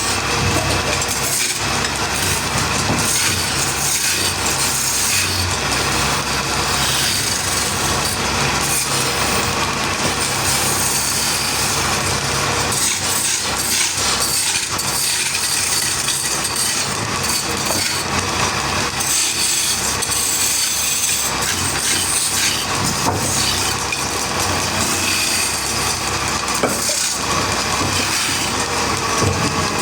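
Powered woodworking machinery cutting into wood, running steadily under a motor hum.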